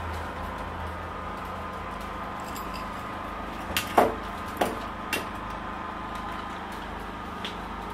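Hard objects knocked and clattered as tools are picked up and handled: a short run of four knocks and clicks about four to five seconds in, the second the loudest with a brief ring, over a steady background hum.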